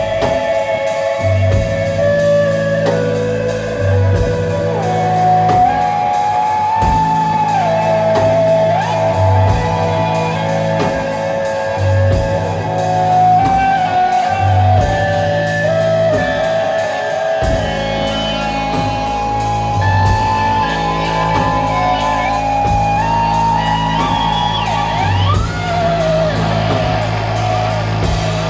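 Live psychedelic rock music: a sustained lead guitar line holds and slides between notes over a repeating bass figure, with a couple of quick rising slides near the end.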